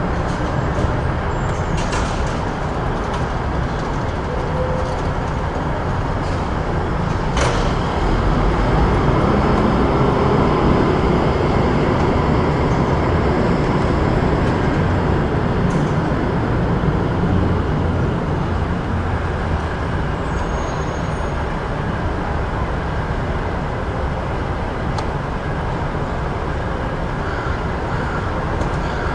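Busy city street traffic: a steady low rumble of passing motor vehicles that swells for several seconds near the middle, with a sharp click about seven seconds in.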